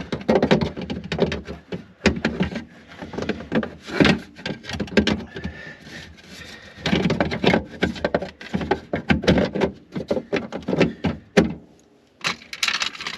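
Plastic tail light assembly being fitted and pressed into place on the car's rear panel: a dense run of knocks, clicks and rattles with rustling handling noise, and a short lull a little before the end.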